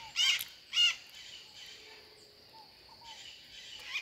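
Maritacas, small Brazilian parrots, giving two loud calls in quick succession at the start, followed by softer scattered chirps.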